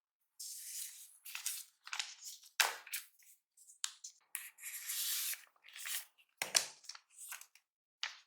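Packaging being handled: irregular rustling and crinkling, a few sharp clicks, and a soft thump about six and a half seconds in.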